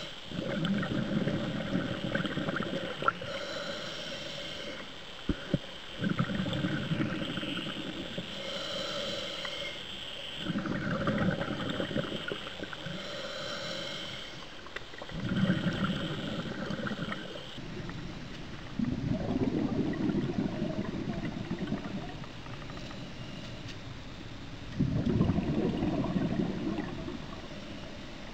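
Scuba diver breathing through a regulator underwater: a burst of bubbles on each exhale, about every four to five seconds. Through the first half, a hiss on each inhale falls between the bursts.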